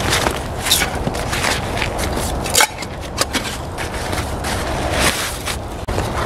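Fabric rustling and crinkling as gear is rummaged out of a backpack: a run of short, crackly scrapes of nylon and canvas, with one sharper crinkle about two and a half seconds in.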